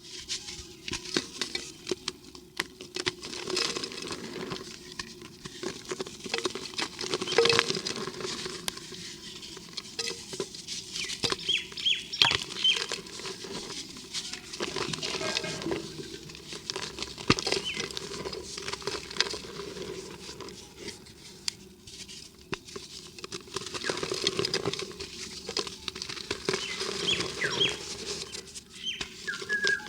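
Dry cement and dirt crumbling, a dense irregular run of gritty crackles and patter with now and then a louder snap.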